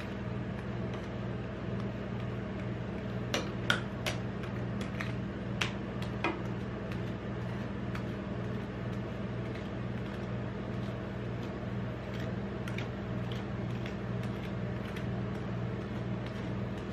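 Metal scrapers spreading and smoothing rolled-ice-cream base across a steel cold plate, with a handful of sharp clicks of scraper on metal between about three and six seconds in. A steady low hum runs underneath.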